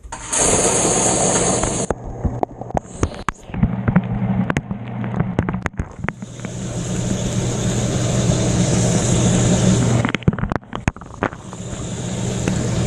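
Inside a running dishwasher during a wash cycle: the wash pump motor hums steadily while water sprays and splashes, with scattered sharp knocks. The spray noise drops away briefly about ten seconds in, then comes back.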